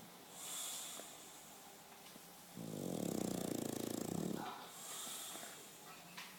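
English bulldog snoring: one loud snore from about two and a half seconds in to four and a half, with softer breathy hisses of breath before and after it.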